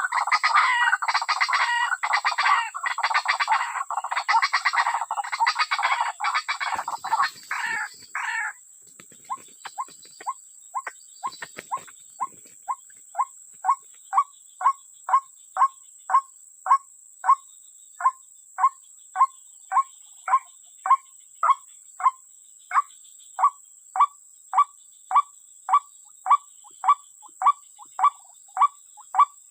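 Animal calls: a dense, fast chattering for about the first eight seconds, then a single short, upward-sweeping call repeated evenly, a little under twice a second. A faint, steady high whine runs underneath.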